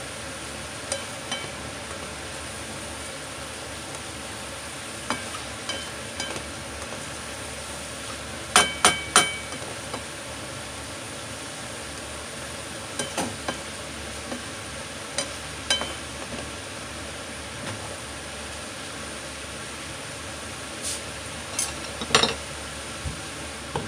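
Sautéed cucumber and ground beef sizzling in a frying pan while being stirred with a spatula, with scattered knocks of the spatula against the pan. Three sharp ringing clinks come in quick succession about eight and a half seconds in, and another knock near the end.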